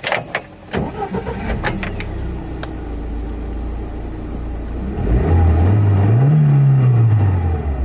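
A 2016 Chevrolet Niva's 1.7-litre four-cylinder petrol engine is started warm and catches within about a second, then idles steadily. About five seconds in it is revved once, the pitch rising and falling back to idle over roughly two seconds.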